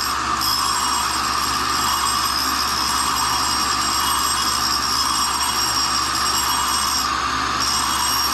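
Tool and cutter grinder running, its abrasive wheel grinding a test piece with a steady hiss over the motor's hum.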